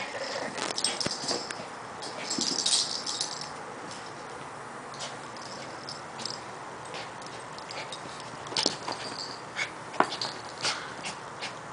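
A small dog scuffling and rolling on carpet while worrying a sock: rustling and scuffing, with many small sharp clicks. The noise is busiest in the first few seconds and again near the end.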